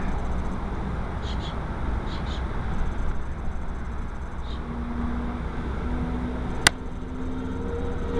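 Steady road noise inside a moving car's cabin. A low steady hum comes in a little past halfway, and there is a single sharp click near the end.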